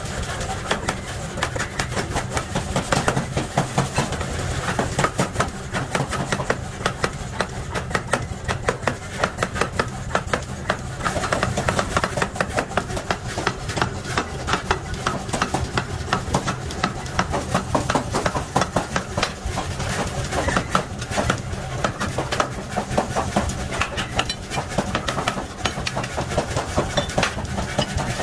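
Forging work on heavy nuts: rapid, irregular metal strikes, several a second, over a steady low machine hum.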